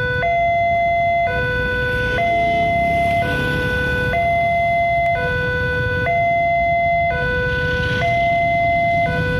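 Railway level-crossing alarm of the Indonesian type sounding a two-tone hi-lo warning, switching between a lower and a higher tone about once a second. It signals that the crossing is closed for an approaching train.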